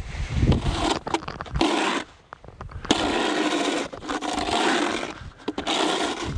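Snow shovel scraping across asphalt in several long strokes, pushing off compacted snow and ice that the de-icer has softened.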